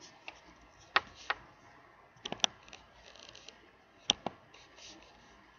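Three pairs of sharp clicks or taps, about a second and a half apart, with faint light scraping between them.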